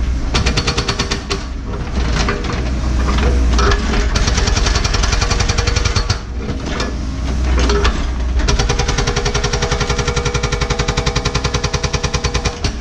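Hydraulic rock hammer on a Cat 314E excavator pounding hard bedrock in rapid, evenly spaced blows over the excavator's diesel engine, with short pauses about a second and a half in and about six seconds in.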